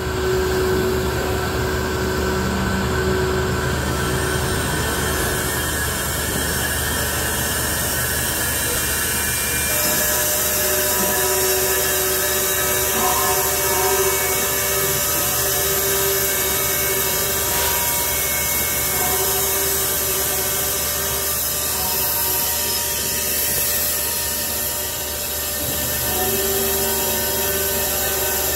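Nitrogen cylinders being charged on a filling manifold: a steady mechanical hum with a high hiss of gas flowing, the hiss growing louder about ten seconds in.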